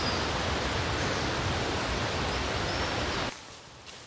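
Loud steady rushing noise with a rumbling low end that cuts off suddenly about three seconds in, over two faint high chirps.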